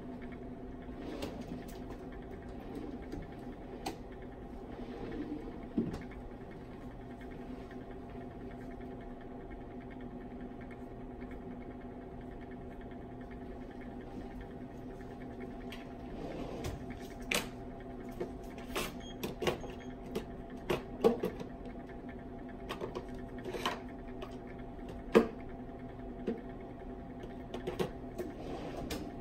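Glass flasks of nutrient agar heating on hot plates: scattered small clicks and pops over a steady hum, the pops coming thicker from about halfway through as the agar starts to bubble against the glass.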